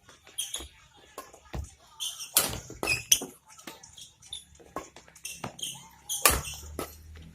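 Badminton rackets striking a shuttlecock during a rally: a string of sharp, irregular hits, the loudest about six seconds in.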